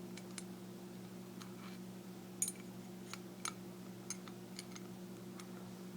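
Faint, irregular small clicks and taps of metal padlock parts being handled and fitted into the lock body, over a steady low hum.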